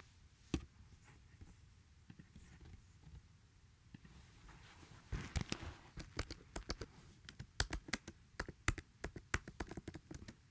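Faint, irregular clicks and taps. There is one tick near the start, then almost nothing until about five seconds in, when the clicks come quickly and unevenly, several a second.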